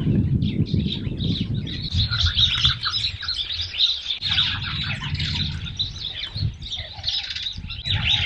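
A flock of small birds chirping at once, a dense chatter of short calls, over a low rumbling noise.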